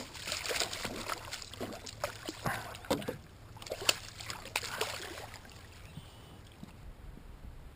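Water splashing and slapping with irregular knocks around a small boat, busy for about five seconds and then dying down.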